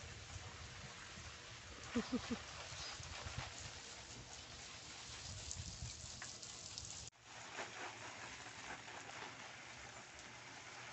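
Garden watering spray falling and pattering on leaves and a wooden frame, a steady rain-like hiss. About two seconds in, three quick low notes stand out as the loudest sound, and the sound drops out for an instant about seven seconds in.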